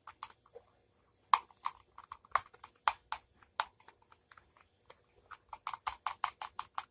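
A utensil stirring glue and food colouring in a bowl, clicking against the bowl: scattered knocks at first, then a quick even run of about five clicks a second from about five seconds in.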